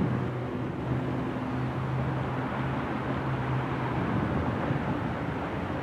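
Steady outdoor rumble of distant vehicle noise, with a low steady engine hum that fades out about four and a half seconds in.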